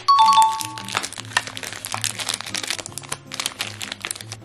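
Thin clear plastic packaging crinkling and crackling in the hands as a small plastic tray and cellophane wrapper are pulled open, over light background music. A short two-note chime sounds right at the start.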